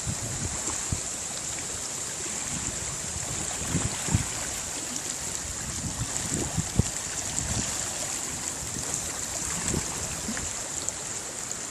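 Wind gusting against the microphone in irregular low buffets over a steady rushing hiss, in the wake of a typhoon.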